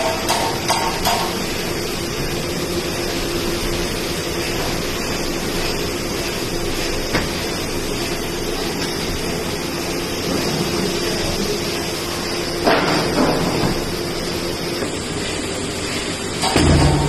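Rolling pin pressing and rolling a slab of patisa (soan papdi) on a large metal plate, over steady noise, with a brief knock about two-thirds of the way in. A low thump near the end as the slab is lifted and flipped over.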